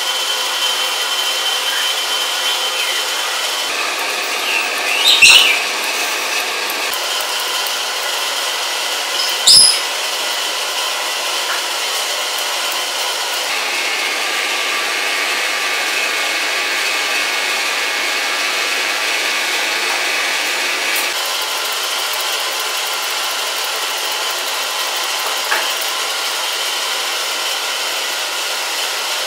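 Small electric pet clipper running with a steady buzz, its pitch shifting several times as it works the fur. Two brief sharp sounds stand out over it about five and about nine and a half seconds in.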